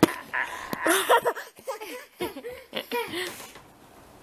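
A sharp knock at the start, then laughter: a string of short giggles, each rising and falling in pitch.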